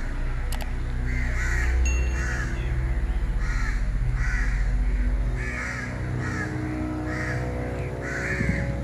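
Crows cawing over and over, roughly one to two harsh caws a second, over sustained background music, with a low rumble for a few seconds in the middle.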